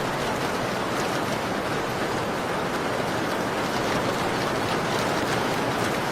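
Steady rain falling, a continuous even hiss, with a few faint, sharp crackles from a wood fire scattered through it.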